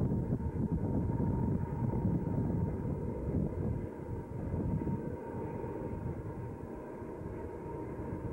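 Low, steady rumble of a distant Southern Pacific diesel-hauled freight train working upgrade, mixed with wind buffeting the microphone. It eases a little about halfway through.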